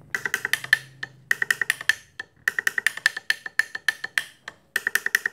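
Three-trumpet MAROO electric car horn sounding in rapid short stuttering beeps, about eight a second, in several runs with brief gaps.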